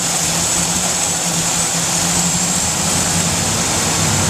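Ford Ranger's 4.0 litre overhead-valve V6 idling steadily, its idle raised as carbon choke cleaner sprayed on the upper intake manifold is drawn in through a vacuum leak there. The leak at the manifold is the cause of the truck's rough idle.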